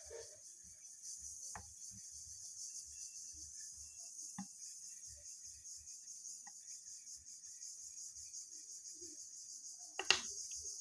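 Steady high-pitched chirring of insects, with faint scattered taps and small clicks, and one sharp click near the end.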